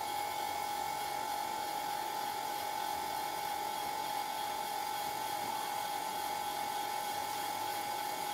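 Wire feed motor of a Hồng Ký HK 416 MIG welder running steadily with the inch button held, pushing welding wire through a 5 m MIG torch lead. A steady, even whine.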